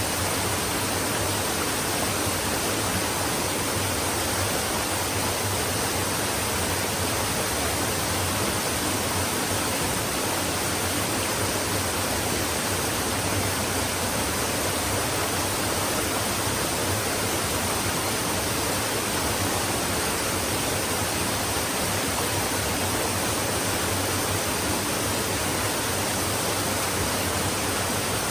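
Flowing stream: a steady, even rush of running water with no separate splashes or other sounds standing out.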